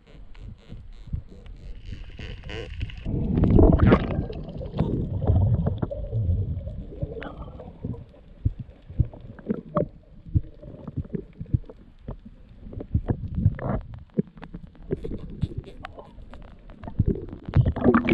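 Muffled underwater sound as heard through a camera's waterproof housing: irregular dull knocks and thumps with gurgling bubbles.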